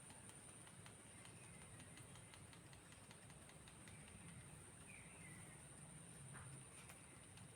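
Near silence: faint outdoor ambience with a steady high hiss and a few faint, short falling bird chirps, one about five seconds in.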